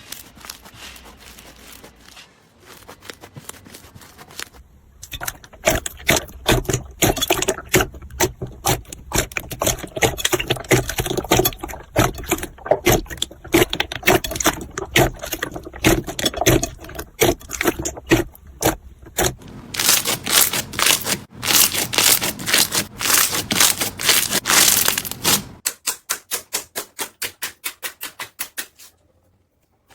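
Slime being squeezed and pressed by hand: dense crackling and popping clicks, typical of crunchy slime, in a few short clips one after another. The sound changes character about five seconds in, again about twenty seconds in, and near the end, where it becomes a slower run of single clicks.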